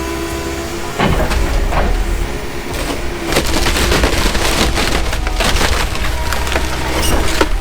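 Komatsu 170 excavator crushing and splintering the wooden debris of a demolished house, with sharp cracks and snaps that come thick and fast from about three seconds in, over the steady hum of the machine's engine.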